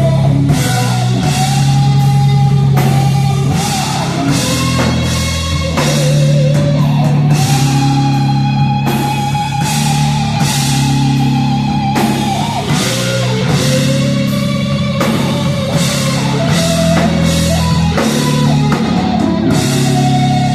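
Rock band playing live: drum kit and bass with distorted guitars, under a melody of long held notes.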